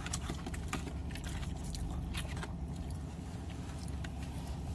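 Faint chewing and mouth clicks from someone eating, over a steady low hum.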